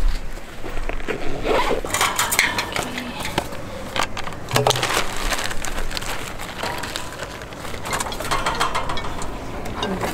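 A clear plastic bag rustling and crinkling as it is handled and opened, with scattered scrapes and knocks of handling.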